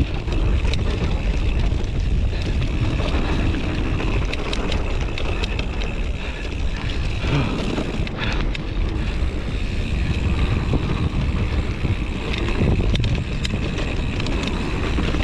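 Wind buffeting a GoPro microphone on a mountain bike descending a dirt singletrack, with tyres on dirt and the bike rattling over rough ground in many small clicks.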